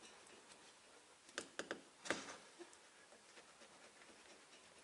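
Quiet background with a quick run of three faint clicks about a second and a half in, then a slightly louder short rustle or scrape just after two seconds, from hand work on the rubber weatherstrip around the rear window glass.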